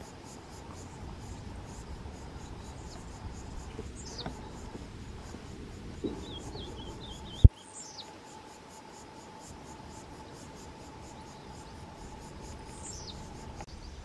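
Outdoor ambience of steady insect trilling with a few faint, high, downward-sliding bird calls and a short twittering call about halfway through. A single sharp click cuts in near the middle, and a faint steady hum runs through the second half.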